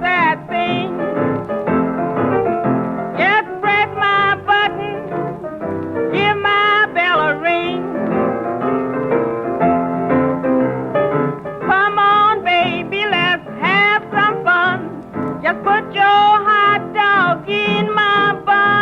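1936 blues record: a small band with piano and a wavering lead melody playing on, with no clear words. It sounds narrow and dull at the top, like an old 78 transfer.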